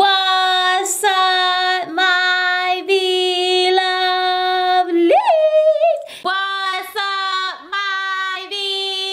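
A woman singing long, steady held notes, broken off about once a second, with a quick swoop up to a higher note about five seconds in.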